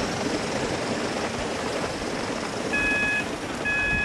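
A long Gauge 1 model train rolling past on its rails, a steady rumble of wheels on track. From about three seconds in, a high beep sounds twice, each about half a second long and about a second apart.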